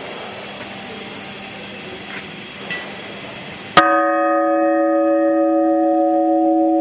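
A 270 kg church bell struck once about halfway through, then ringing on loudly with several steady overlapping tones. Before the strike there is a steady background hum.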